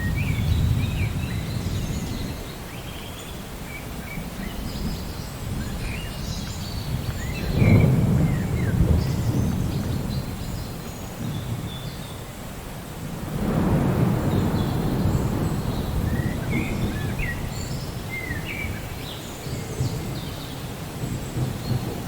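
Thunder rumbling steadily, with two louder peals about 8 and 14 seconds in, while birds chirp throughout.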